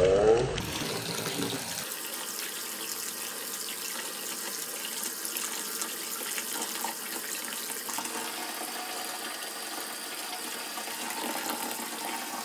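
Bathtub faucet running steadily, its stream splashing over a hand holding a crumbled bubble bar and into foamy bath water.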